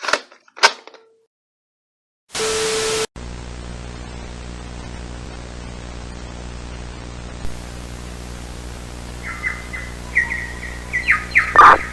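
Distorted static and electronic noise: a few crackling clicks, then a loud burst of static with a steady tone about two seconds in. A steady buzzing hum follows, with short electronic chirps and a falling warble near the end.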